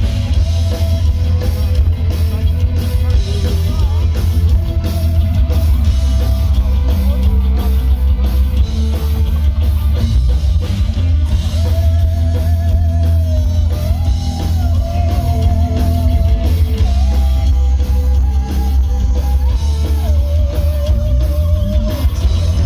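Live folk metal band playing loud: heavy guitar, drum kit and booming bass, with a wavering lead melody carried over it, among them a bowed morin khuur (Mongolian horsehead fiddle).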